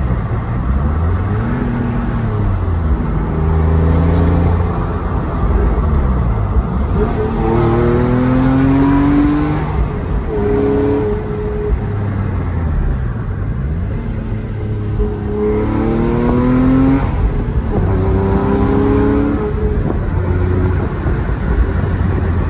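2008 Porsche 911 Carrera S's flat-six engine heard from inside the cabin, repeatedly rising in pitch as the car accelerates and dropping back as it eases off or changes gear, over steady road noise.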